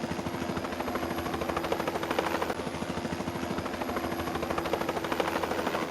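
A machine running with a fast, even beating over a steady hum. It starts and stops abruptly as a single sound-effect clip.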